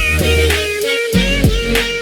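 Background music with a beat: a melodic line over a deep bass and sharp percussive hits.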